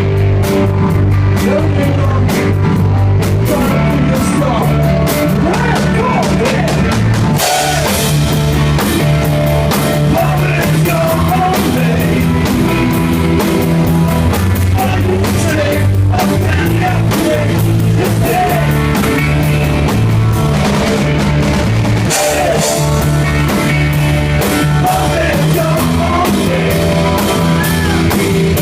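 Live rock band playing loudly, with singing over drums and electric guitar.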